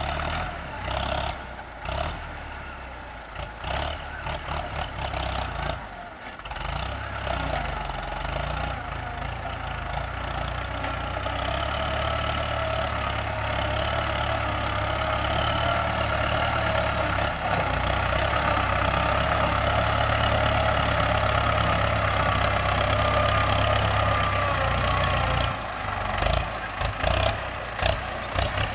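Ford 6610 tractor's four-cylinder diesel engine running steadily under load while pulling a disc plough through dry soil. It grows steadily louder through the middle as the tractor comes closer, with some irregular clatter near the start and near the end.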